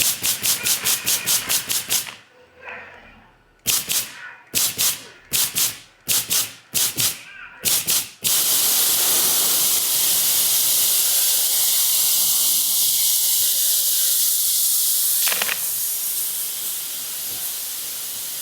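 Welding: a fast run of short sharp pulses, about five a second, then a pause and more irregular pulses, giving way about eight seconds in to a steady loud hiss that continues on.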